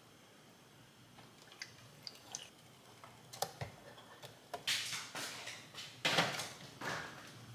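Kitchen handling sounds around a plastic ice cube tray being filled from a water filter pitcher: a faint start, then small clicks and knocks. After a few seconds come several louder scraping, rustling bursts as the pitcher and tray are moved.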